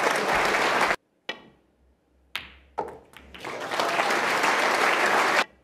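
Arena audience applauding in two bursts, each cut off abruptly, the first about a second in and the second near the end. Between them come a few sharp clicks of snooker balls striking.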